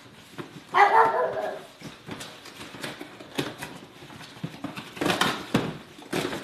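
A dog gives one loud bark-like call about a second in, over the clicks and rustling of a cardboard shoebox being opened by hand; the rustling grows denser near the end.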